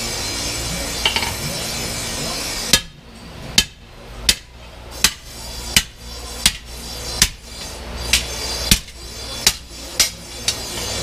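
Hand hammer striking a bamboo-handled chisel set on a 5160 spring-steel billet resting on an artillery-shell anvil, scoring the steel down the middle: about a dozen sharp metallic strikes, a little under a second apart. The strikes follow a few seconds of steady rushing noise.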